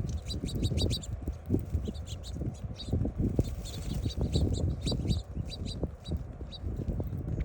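Small birds chirping in quick runs of short high notes, over a steady low rustling and bumping.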